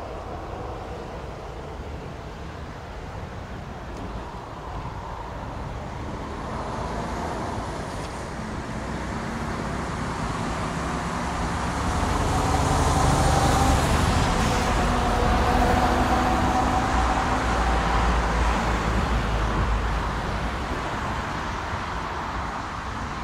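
Boeing 737 twin jet engines running at taxi power as the airliner rolls past: a low rumble with a steady whine over it. It swells to its loudest a little past halfway and eases off toward the end.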